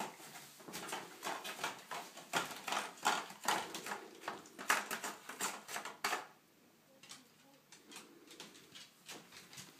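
A dog clattering and scraping a small foil pâté tray held in her mouth against a wooden floor and cupboard: a quick run of sharp clicks and rustles that falls away about six seconds in, leaving only a few faint ones.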